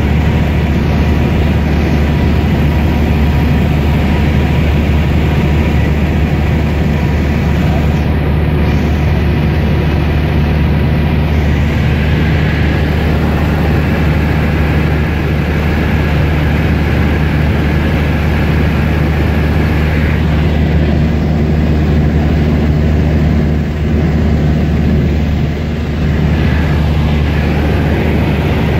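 Cessna 152's four-cylinder Lycoming engine and propeller droning steadily in flight, heard loud from inside the cabin.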